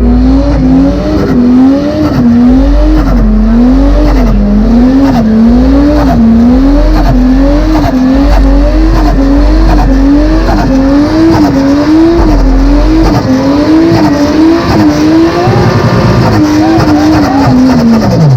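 A car engine held at high revs through a burnout. The pitch rises and falls about once a second as the throttle is worked, over tyre screech. The revs drop away sharply at the end.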